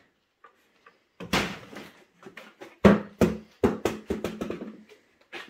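Wooden chair being lifted upright and set down on a wooden floor: a quick series of knocks and clatters, the loudest about three seconds in.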